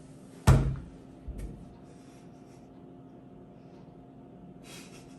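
A short, sudden burst of stifled laughter through the nose from a person holding a mouthful of water, about half a second in, with a smaller burst a second later and faint breathy hiss near the end.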